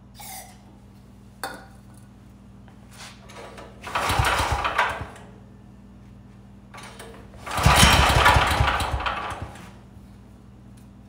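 Champion portable generator's small gasoline engine pull-started twice with its recoil starter on a squirt of starting fluid. About four seconds in it fires for about a second, and about eight seconds in for nearly two seconds, each time dying out again. A brief hiss of the starting-fluid spray can comes at the very start.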